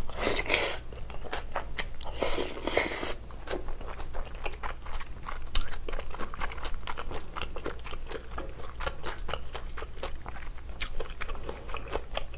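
Close-miked chewing of a mouthful of meatball in tomato sauce with melted cheese: wet, irregular mouth clicks and smacks, with denser, louder stretches in the first three seconds.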